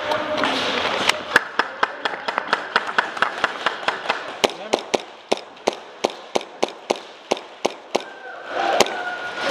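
Airsoft pistol fired in rapid semi-automatic shots, a long string of sharp cracks at about three to four a second.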